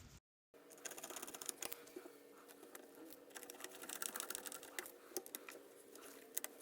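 Faint, irregular small clicks and taps of hands working on the lather machine's small parts and screws during reassembly, over a low steady hum.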